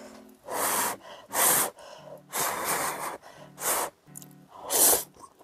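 Noodle slurping: five loud slurps of spicy black-bean instant ramen noodles, the longest in the middle and the loudest near the end, over background music.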